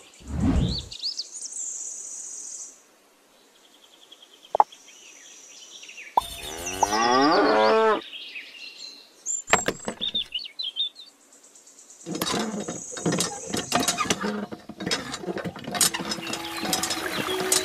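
Cow mooing, added as sound effects, with short sliding whistle-like effects between the calls. In the last few seconds there is a busier mix of clicks and water trickling from a miniature hand pump, with music coming in.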